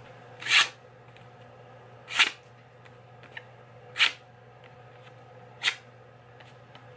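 Freshly sharpened steel knife blade, made from a lawnmower blade, slicing through a sheet of paper four times, each cut a short crisp swish about every second and a half. It is a paper-cutting test of the edge's sharpness.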